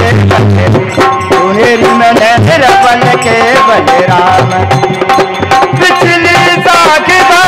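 Devotional folk music: a harmonium plays the melody over a dholak beating a steady rhythm.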